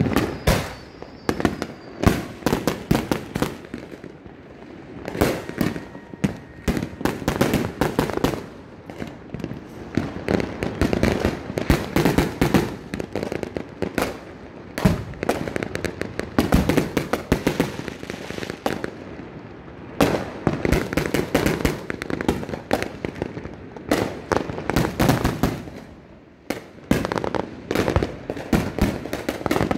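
Many fireworks going off at once: a dense, irregular run of bangs, pops and crackles that hardly lets up.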